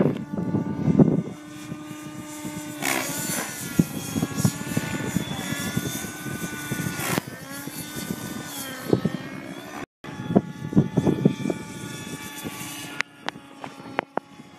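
Synergy N5 radio-controlled helicopter's YS 56 nitro engine with a Hatori tuned pipe, running in flight along with its rotor, its pitch wavering up and down as the helicopter manoeuvres. The sound drops out for an instant about two-thirds of the way through.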